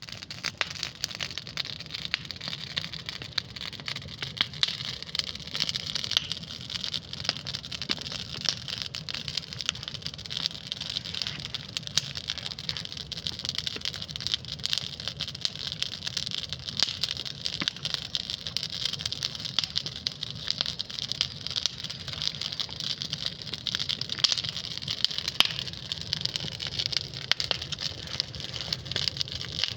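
Campfire crackling: a steady patter of small sharp pops, a few louder ones, over a low steady rush.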